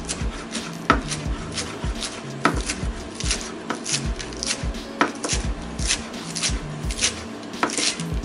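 Chef's knife finely slicing iceberg lettuce on a plastic cutting board: a steady run of crisp chopping strokes, about two to three a second.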